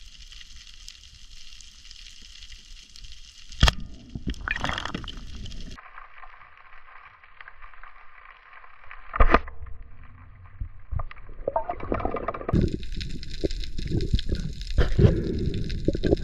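Water sloshing and gurgling heard underwater, with a few sharp knocks. The sound changes abruptly twice.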